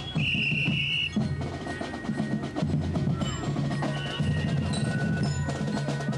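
Marching drums playing a parade cadence, with sharp stick clicks over repeating low drum beats.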